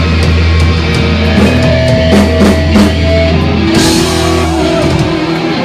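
Heavy metal band playing live with distorted electric guitar, bass and drum kit: a low chord held under a run of drum hits, a cymbal crash a little under four seconds in, and the low note cutting off near the end as the song finishes.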